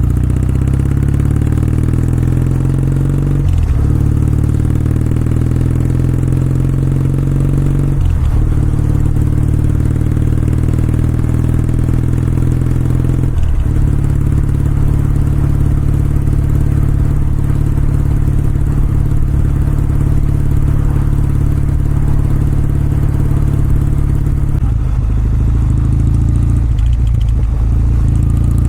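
Kawasaki W650's air-cooled parallel-twin engine and exhaust on the move, pulling up through the gears. Three shifts come at about 3.5, 8 and 13.5 seconds, each a brief break with a drop in pitch. The bike then runs at a steady cruise, and the throttle eases briefly twice near the end.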